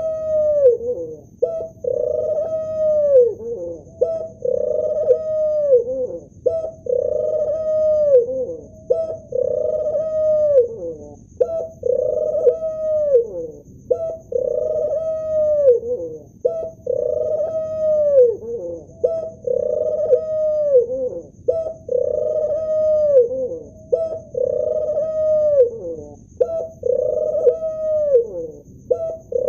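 Male ring-necked dove cooing over and over, about one coo every two and a half seconds, each call held and then sliding down in pitch at the end.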